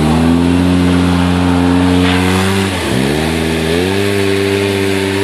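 Honda single-cylinder ATV engine running under throttle close by. The revs climb and hold, drop sharply about three seconds in, then climb back and hold again.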